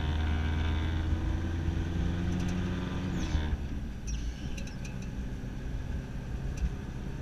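Car engine and road noise heard from inside the cabin while driving. A steady low engine drone drops in pitch and fades about halfway through, leaving a quieter tyre rumble with a few light knocks and rattles.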